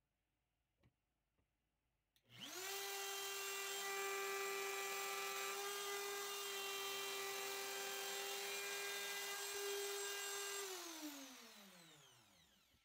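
DeWalt plunge router switched on about two seconds in, spinning up at once to a steady high-pitched whine as it routs a dado in a walnut board. Near the end it is switched off and the whine falls in pitch as the motor winds down.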